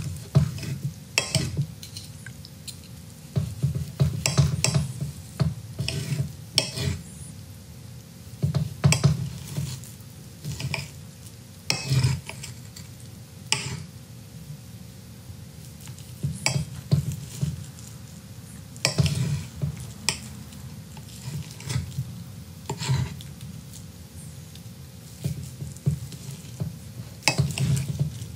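Steak knife sawing through a cooked steak, its blade and a fork scraping and clicking against a plate in irregular strokes with short pauses.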